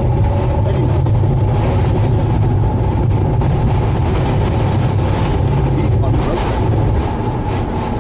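Bombardier Global Express jet at takeoff power on its takeoff roll, heard inside the cockpit: the two Rolls-Royce BR710 turbofans and the runway rumble make a loud, steady noise with a deep low rumble.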